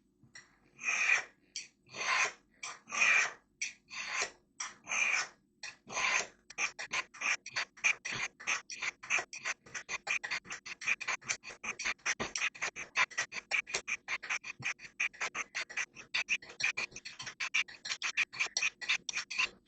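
Paring knife blade scraping down the coarse stones of a Spyderco triangle sharpener, used to raise an edge on a blade that is still dull. Slow single strokes about once a second at first, then quick strokes about four a second from about six seconds in.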